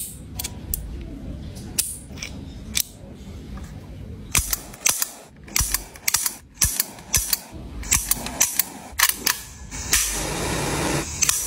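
Many sharp mechanical clicks from toy replica pistols being worked by hand, a miniature Beretta 92-style keychain gun and a full-size pistol-shaped lighter, crowding together in quick runs midway. Near the end a steady hiss sets in as the pistol lighter's flame burns.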